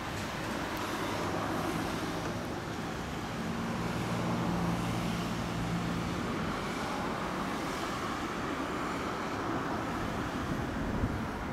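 Street traffic running steadily, with one vehicle's engine passing close by between about three and seven seconds in.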